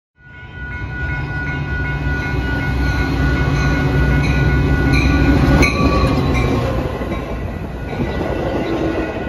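Metra diesel locomotive and its bilevel commuter cars passing close by, fading in from silence into a loud low engine rumble with steady high-pitched whining tones over it. There is a single knock about halfway through as the cars roll past.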